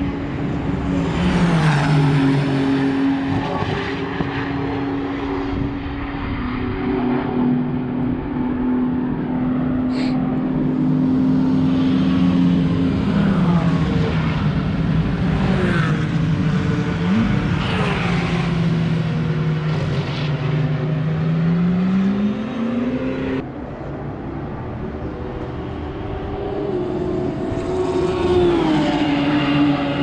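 Track-day cars' engines heard from beside the track as several cars pass, their notes rising and falling in pitch as they accelerate, shift and go by, over a steadier engine hum. The sound drops off suddenly about three-quarters of the way through, then engines build again near the end.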